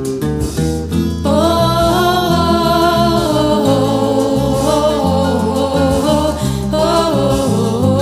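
A woman singing a French chanson over instrumental backing with a moving bass line. The voice comes in about a second in and holds long notes.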